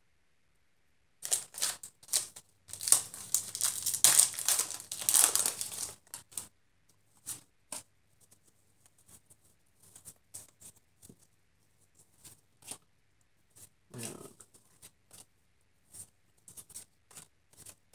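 A Pokémon booster pack's foil wrapper being torn open and crinkled for about five seconds, starting about a second in. After that come scattered light clicks and rustles as the cards inside are handled.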